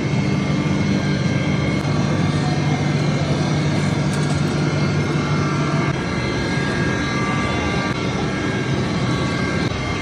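Factory machinery running steadily: a loud, constant mechanical drone with a low hum, easing slightly about six seconds in.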